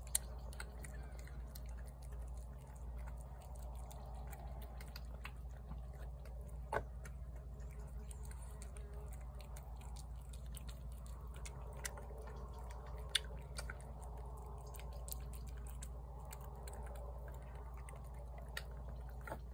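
Tabby cat eating shredded wet cat food from a plate: a run of small wet chewing and smacking clicks, with a couple of louder clicks about seven and thirteen seconds in, over a steady low hum.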